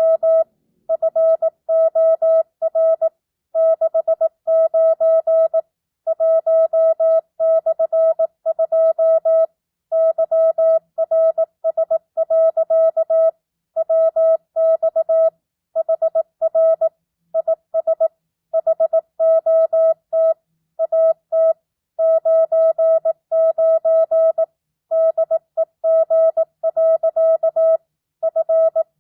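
Morse code (CW) at 18 words per minute, non-Farnsworth spacing: a single mid-pitched tone keyed on and off in dots and dashes, with short gaps between letters and longer gaps between words, spelling out a simulated two-way ham radio exchange.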